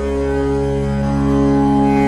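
Tanpura drone tuned to C#: its strings are plucked in a continuous cycle and blend into one steady, sustained drone rich in shimmering overtones.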